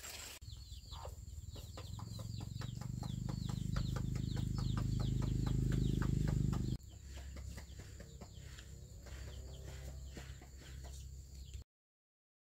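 Chickens in a bamboo coop calling rapidly, short high downward calls at about four or five a second, over a low rumble that grows louder and stops abruptly about seven seconds in. Softer clucking carries on after that, and then the sound cuts out near the end.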